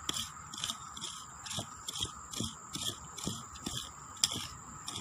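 A small hand digging tool chopping and scraping into soil, about two to three strokes a second, as a metal detector target is dug out.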